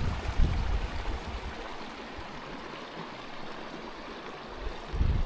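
Steady rushing of a mountain stream, with a low rumble at the start and again near the end.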